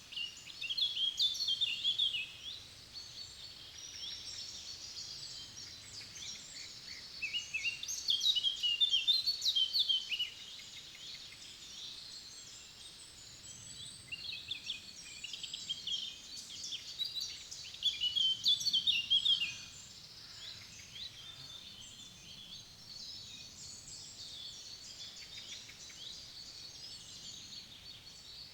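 Forest songbirds singing. A louder song phrase of about two seconds stands out three times, with fainter calls from other birds between.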